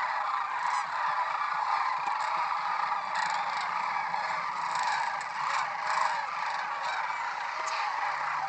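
A large flock of sandhill cranes calling together: a dense, steady chorus of many overlapping bugling calls.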